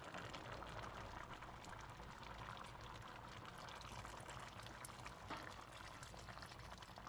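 Blended coconut milk pouring from a blender jug through a mesh strainer into a simmering pot: a faint, steady trickle of liquid.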